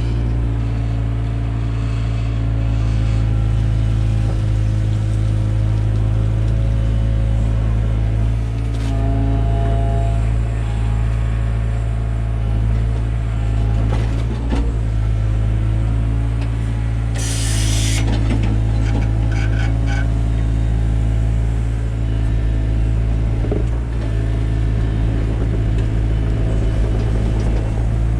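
Takeuchi TB175 excavator's diesel engine running steadily while digging, its pitch shifting slightly with load. A short hiss about 17 seconds in.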